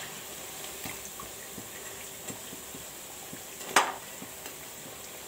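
Wheat-flour pakodi deep-frying in hot oil: a steady sizzle full of small crackles. Near the four-second mark, a single sharp clack of the metal slotted spoon against the pan.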